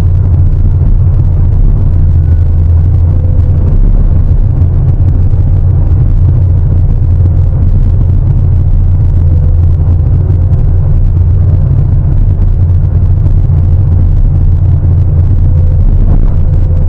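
Sany 750 hydraulic excavator's diesel engine running under load with a loud, steady low drone.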